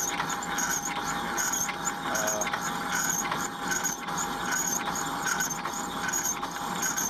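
Old South Bend 14½-inch lathe running while a dull high-speed-steel tool takes a finishing cut on a large steel flywheel spacer. Steady machine noise with a scraping pulse repeating about every 0.7 seconds.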